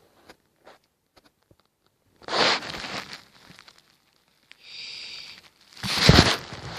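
Handling noise close to the microphone: two short bursts of rustling and crinkling, the second with a bump, and a fainter scraping rustle between them.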